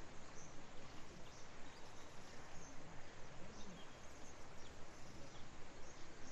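Steady rushing of a river, with faint scattered bird chirps.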